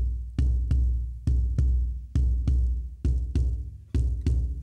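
Music: a deep drum beating a steady, loping pattern of low hits, about two a second in short-long pairs, each ringing out before the next.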